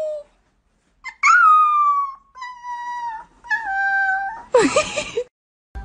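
Puppy howling: three drawn-out howls, each a little lower than the one before, then a short rougher cry near the end.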